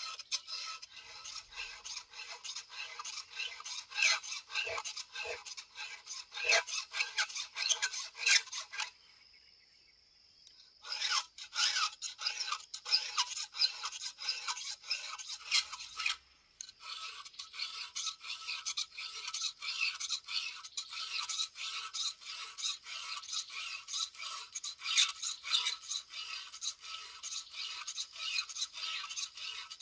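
Chainsaw chain on a STIHL MS 070 being sharpened with a hand file: quick repeated rasping strokes of the file across the cutter teeth, stopping for about two seconds some nine seconds in and briefly again about sixteen seconds in.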